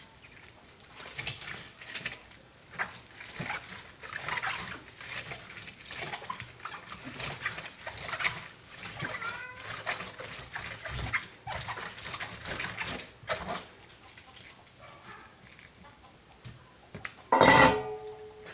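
Soaked paper being rubbed by hand against a ridged plastic washboard in water, breaking it down into pulp, in irregular scrubbing strokes. About a second before the end comes a brief, loud squeaky sound with a pitched ring.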